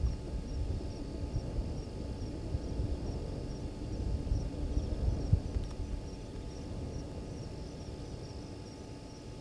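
Night bush ambience: a faint high insect chirp pulsing evenly about three times a second over a low, uneven rumble that swells and is loudest about five seconds in.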